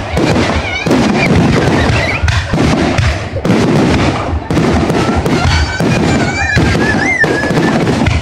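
Fireworks going off in rapid succession: loud bangs and crackling. Wavering, rising high whistles sound over them, strongest from about five to seven seconds in.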